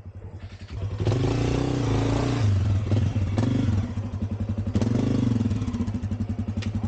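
Dirt bike engine revving, getting louder about a second in, its pitch rising and falling as the throttle opens and closes, with a couple of short knocks in the middle.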